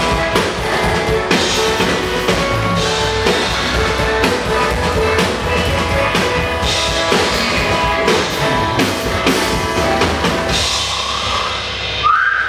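Drum kit played hard over a pop-rock backing track, with bass drum, snare and cymbals keeping a steady beat. The music thins out and stops near the end, where one pitched call rises and then falls.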